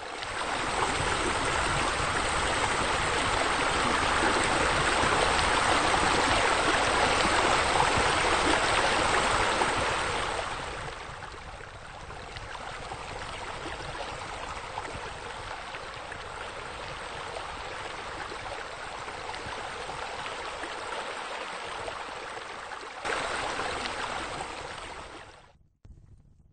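Running, splashing water, a steady rush that drops quieter about ten seconds in, comes back louder briefly near the end, then fades out.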